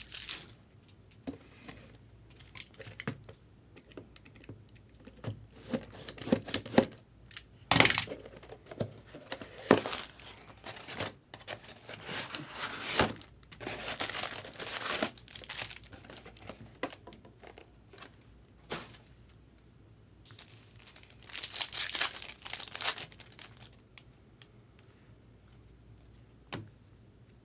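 Trading card pack wrapper being torn open and crinkled in short, irregular bursts of rustling, the loudest about 8 seconds in and a run of them near the end.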